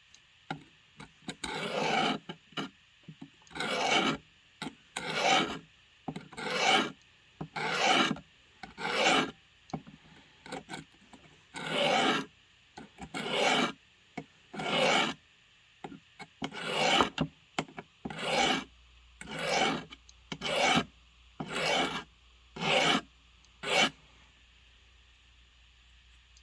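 A hatchet's edge being sharpened on its second side: a run of separate scraping strokes of steel against an abrasive, roughly one every second and a half, stopping near the end.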